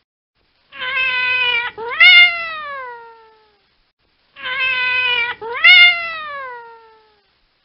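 Domestic cat meowing: two long meows, each a held note that breaks into a louder cry rising and then falling in pitch. The second meow repeats the first exactly.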